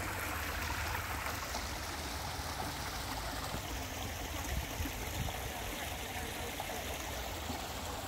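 Water running steadily through a small stone channel and over a low lip into a garden pond, a continuous trickling rush.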